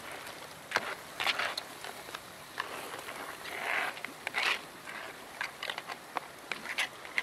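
Wooden spatula stirring whole crabs in curry sauce in a black wok: irregular clacks and scrapes of shell and spatula against the pan, one longer scrape about four seconds in, over a faint steady sizzle.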